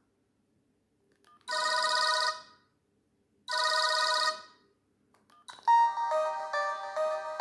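Sony Ericsson J220i mobile phone playing ringtones: two identical short ring bursts about two seconds apart, then a different melodic ringtone starts near the end.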